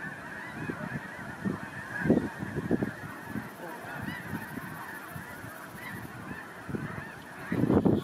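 Large flock of snow geese on the water keeping up a dense, continuous din of many overlapping calls. A few louder low bursts stand out about two seconds in and just before the end.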